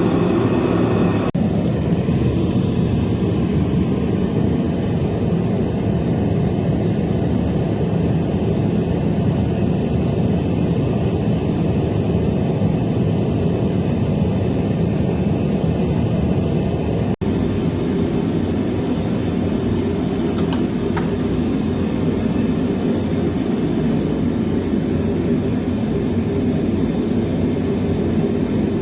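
Metal-melting furnace burner running with a steady, rushing roar as it heats the crucibles, unchanging apart from a brief dip about 17 seconds in.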